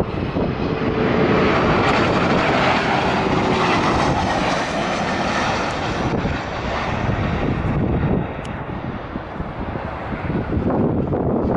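An airliner's engines running as it passes, a dense rushing noise with a faint whine, loudest in the first half and easing off a little after about six seconds.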